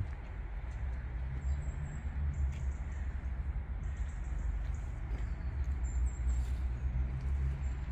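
Outdoor city street ambience heard while walking: a steady low rumble with a few faint high chirps and light clicks over it.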